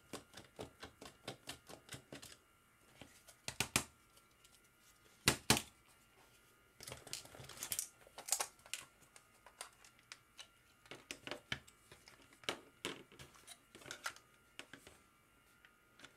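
Small Phillips screwdriver taking the screws out of a plastic charging-cradle case: quick runs of faint light clicks, a few sharper knocks as screws and tool are handled, and plastic case parts clicking and scraping as the case is worked apart.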